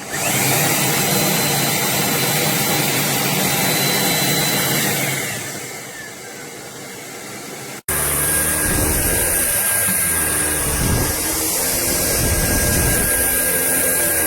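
Dreame Z20 cordless stick vacuum motor switching on with a rising whine, running steadily for about five seconds, then winding down. After an abrupt cut, a motor runs again with a loud high hiss of rushing air and a steady whine.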